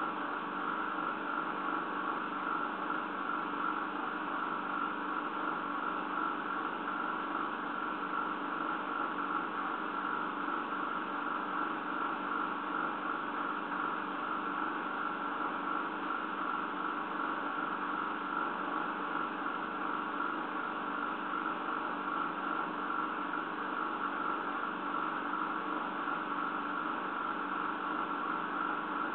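Steady, unchanging hum and hiss with no distinct events.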